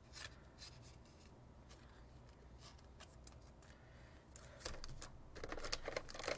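Clear plastic tray insert and foil-wrapped booster pack being handled: faint scattered clicks and rubs, then about four and a half seconds in a louder run of plastic crinkling as the pack is pulled from the tray.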